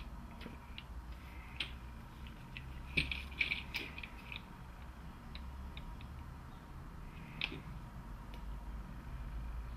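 Light clicks and taps as an ABS module's circuit board, carrying metal valve-coil housings, is handled and turned on a workbench, over a faint steady hum. A cluster of clicks comes about three seconds in and one sharper click about seven and a half seconds in.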